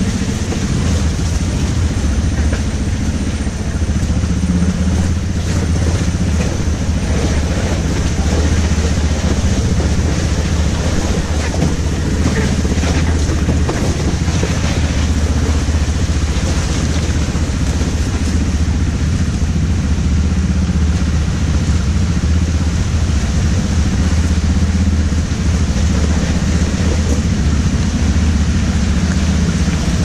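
ATV engine running steadily under way, a constant low drone with a steady hiss of noise over it.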